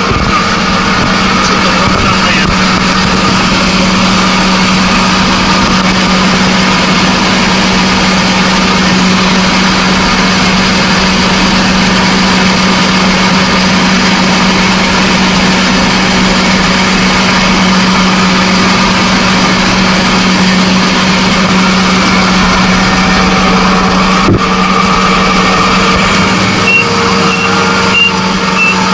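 Kubota ARN460 combine harvester running steadily under load while harvesting rice, heard from inside its cab. A row of short high-pitched beeps repeats near the end.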